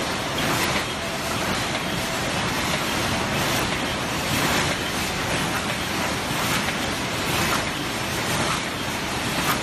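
Automatic paper bucket forming machines running: a steady mechanical clatter with a faint repeating beat about once a second, in step with the forming cycle.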